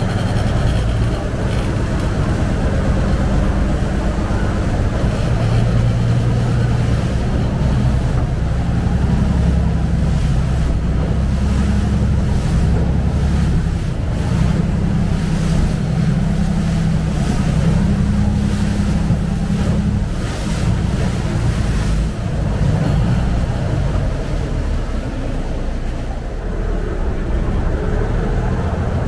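Canal taxi boat under way: its engine running with a steady low drone, with water rushing along the hull.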